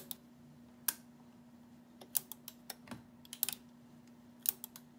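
Teletype Model 28 KSR keyboard and typing-unit mechanism clicking as it is turned over slowly by hand to send and print an R: irregular sharp metallic clicks and snaps, single and in small clusters, over a faint steady hum.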